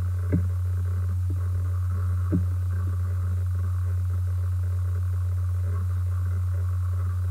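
Steady low hum, with two soft clicks about two seconds apart near the start.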